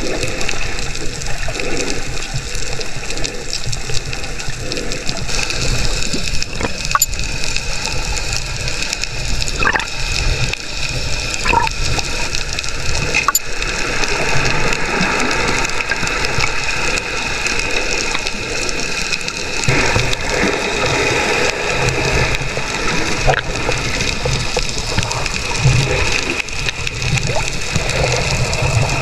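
Sea water sloshing and rushing around a camera held in the water while snorkeling, a steady noisy wash with a few faint clicks.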